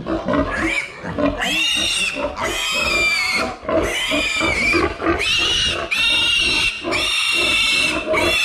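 Piglet squealing in distress while held up by a hind leg: a run of long, shrill squeals, about one a second, starting about a second in.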